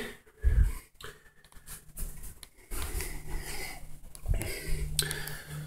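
Handling noise and footsteps from a handheld camera being carried through a small room, with a low thump about half a second in and a faint steady hum in the second half.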